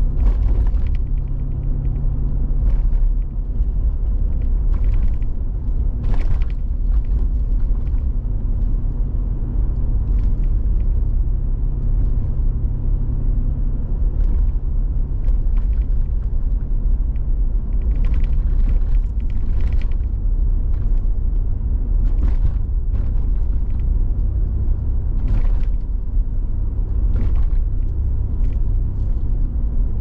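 Car driving: a steady low rumble of engine and road noise, with occasional faint knocks.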